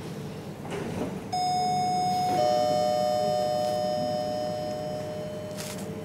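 Elevator arrival chime: two bell-like notes, the second a little lower and about a second after the first, each ringing out slowly for several seconds. A steady low hum runs underneath.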